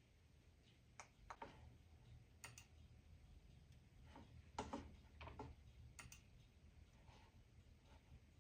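Faint, irregular clicks, about half a dozen, a couple of them in quick pairs, over near silence with a low steady hum.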